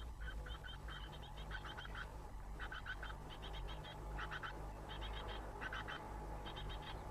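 Small songbirds giving rapid, buzzy chattering calls in repeated short bursts, over a steady low hum.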